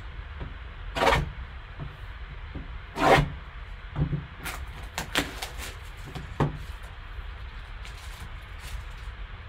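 Plastic shrink wrap being cut and torn off a cardboard card box, with two longer crinkly rustles about a second and three seconds in, then a run of light clicks and taps as the box is handled and its lid lifted. A low steady hum sits underneath.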